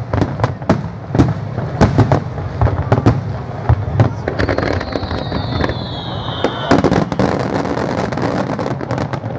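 Fireworks display: aerial shells bursting in quick, irregular bangs and crackles. A high whistle slides down in pitch for about two seconds midway, then a dense run of crackling cracks follows.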